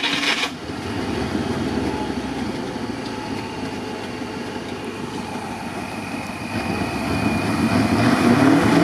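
Off-road vehicle engine running under load in the mud, with the revs climbing near the end.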